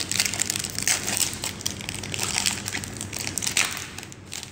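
Foil wrapper of a trading card pack crinkling in irregular bursts as hands open it and handle the cards, loudest in the first second and again about three and a half seconds in.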